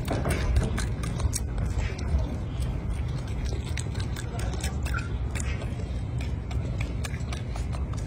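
Golden snub-nosed monkey peeling and eating a boiled egg: many small irregular clicks and crackles of eggshell and chewing, over a low steady rumble.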